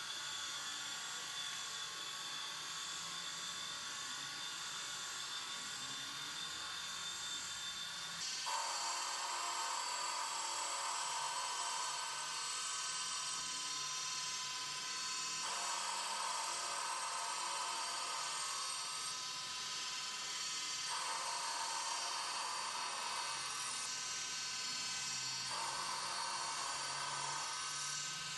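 CK210B small CNC lathe turning a metal bar: a steady high-pitched whine from the spindle and drive, with the hiss of the cutting tool. About 8 s in it gets louder, and from then on its tone shifts every few seconds as the cut changes.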